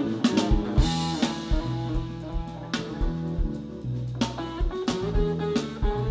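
Live band playing an instrumental passage: electric guitar and bass over a drum kit, with keyboards, the drums keeping a steady beat.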